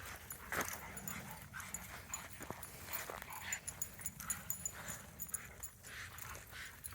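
Faint, scattered small sounds of a dog, heard off and on.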